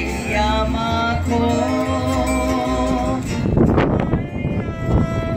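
Hawaiian hula music: a voice holding long sung notes over plucked strings, with two heavier strokes in the second half.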